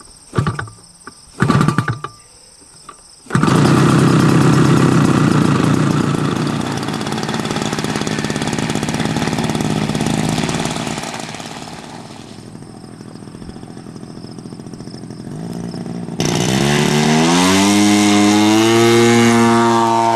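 Radio-controlled model Corsair's engine being hand-started: several short bursts as it fires briefly, then it catches about three seconds in and runs loudly. Near the end the throttle is opened for the takeoff run and the pitch rises steeply, then holds.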